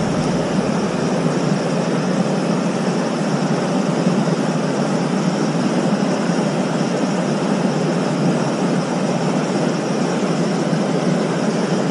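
Steady rushing water of a fast-flowing trout stream, an even, unbroken rush with no change in level.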